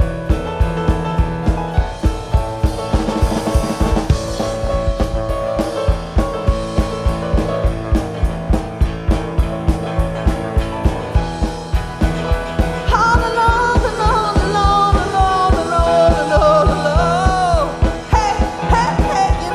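Live rock band playing with a drum kit keeping a steady driving beat under sustained bass and guitar. About thirteen seconds in, a high wavering lead line comes in over the top.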